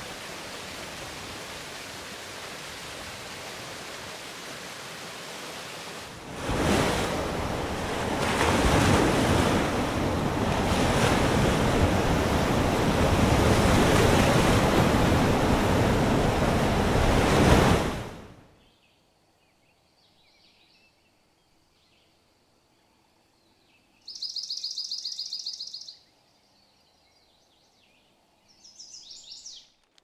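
A steady rush of falling water, giving way about six seconds in to the louder, swelling wash of ocean waves, which cut off about 18 s in. The last stretch is almost quiet, broken by birdsong: a fast high trill lasting about two seconds, and a shorter call near the end.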